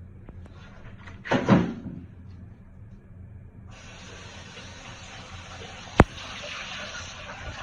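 A loud knock about a second in, then a steady hiss that starts suddenly and keeps on: 40-volume hydrogen peroxide decomposing on potassium permanganate and foaming out. A single sharp click near the end.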